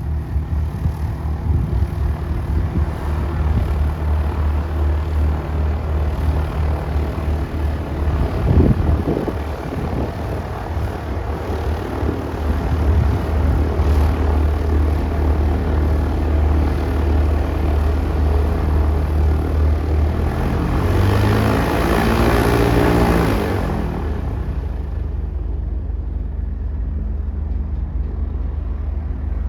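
Propeller airplane engine droning steadily, growing louder and passing close by a little past the middle, its pitch dropping as it goes past, then fading to a quieter drone.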